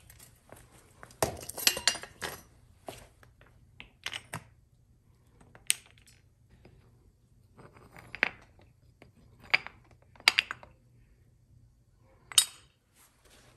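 Freshly cast aluminum ingots knocked out of metal ingot molds with tongs: a series of sharp metallic clinks and knocks as molds and ingots hit the concrete and each other. A quick cluster comes in the first couple of seconds, then single knocks every second or two.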